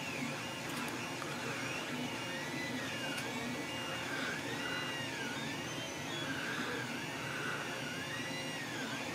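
3D printer's stepper motors whining in repeated rising-and-falling arcs, about one a second, as the axes speed up and slow down through their moves, over a steady low hum.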